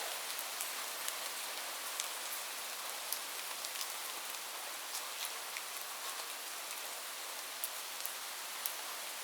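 Steady rain: an even hiss with scattered sharp ticks of individual drops striking a surface.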